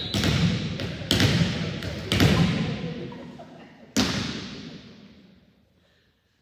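Sharp smacks of a volleyball ringing through a large gymnasium: three about a second apart, then another about four seconds in, each echoing off into the hall before it fades.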